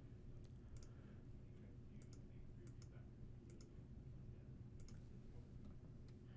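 Faint, sharp computer mouse clicks, about five spread across a few seconds, over a low steady hum of room tone.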